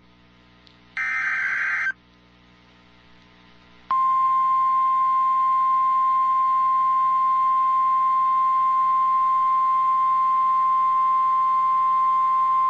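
NOAA Weather Radio alert signalling: a one-second burst of the warbling SAME digital header, then a two-second pause, then the steady 1050 Hz alert tone held for about nine seconds. These are the tones that open the broadcast of a new alert, here a tornado watch.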